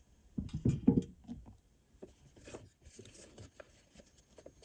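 Light handling noise at a sewing machine: a quick cluster of small knocks and clicks about half a second in, then faint rustling and taps as fabric is arranged under the presser foot.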